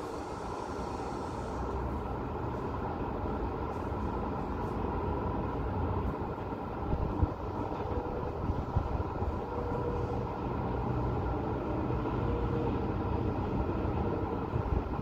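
Steady hum of road traffic heard from high up and at a distance, with a few brief louder peaks about seven to nine seconds in.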